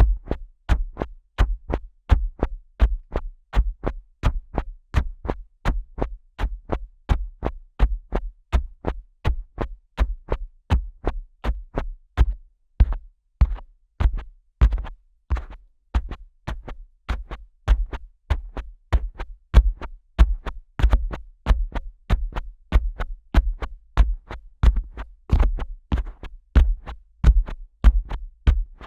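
Fingers tapping and pressing on the ears of a Neumann KU100 dummy-head microphone, heard close up through the microphone's own ears: a steady rhythm of deep, muffled thumps with a click on each, about two to three a second.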